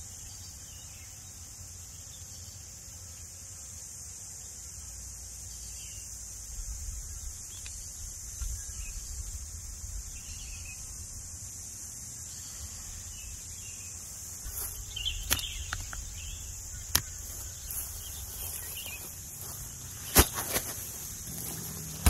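Steady high-pitched chorus of insects, typical of crickets, over a low, fluctuating rumble of wind on the microphone. Several sharp clicks or knocks come in the last seven seconds, the loudest about two seconds before the end.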